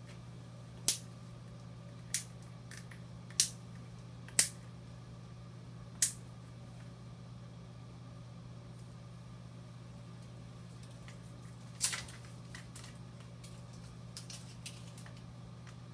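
Plastic tubing clamps on a Baxter peritoneal dialysis cycler set being snapped shut one at a time: six sharp clicks, five in the first six seconds and one about twelve seconds in, over a steady low hum.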